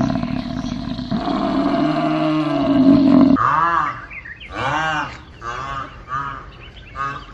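A calf bawling in one long, steady, low call. About three seconds in, an animatronic dinosaur takes over with a run of short roars that rise and fall in pitch, about one every half second.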